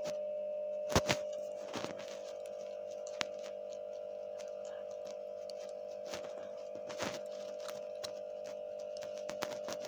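A steady hum with a few sharp knocks and clicks, the loudest about a second in: handling noise as a picture book's page is turned and the book moved on a table.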